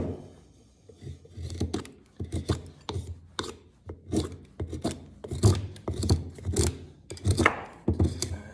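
A hand-forged 1075 carbon-steel knife blade whittling strokes into wood, a quick scrape-cut about twice a second, starting about a second in. This is a count of strokes for an edge retention test.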